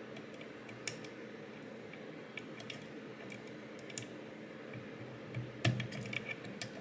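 Small metal clicks and taps of hand tools working at the circlip on a lock cylinder, coming irregularly, with a louder cluster near the end.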